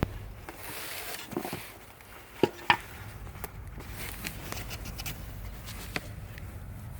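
Rustling of dresses being handled, with scattered sharp clicks and knocks; the loudest two come close together about two and a half seconds in.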